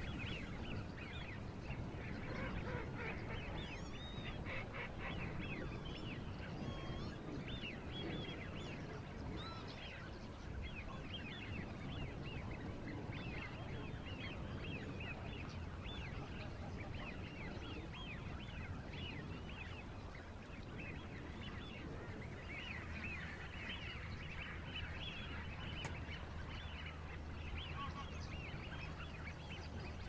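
Many birds calling at once, a dense chorus of short, overlapping calls that runs on without a break and thickens again in the latter part.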